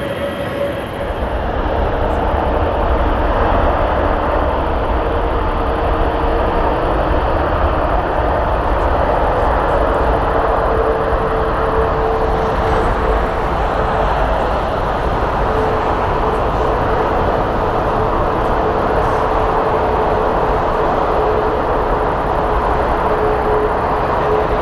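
Jet airliner engines at takeoff thrust: a loud, steady roar that swells about a second in, with a humming tone that sinks slowly.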